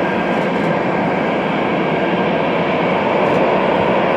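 Boeing 747-400 freighter's jet engines running during pushback, heard from a distance as a steady, even roar with a faint high whine that fades about a second in.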